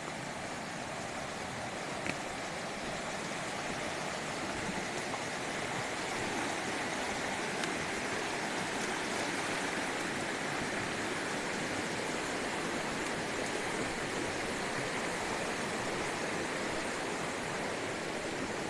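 Steady rush of flowing river water, with a single brief tick about two seconds in.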